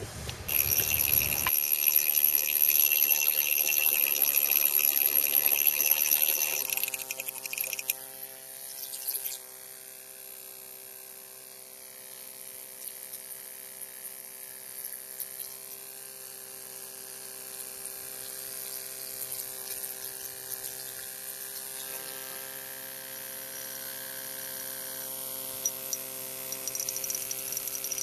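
A bushing chisel tool working the edge of a limestone block, with a loud, steady, high-pitched whine for about the first seven seconds. After that it drops to a much softer steady tone.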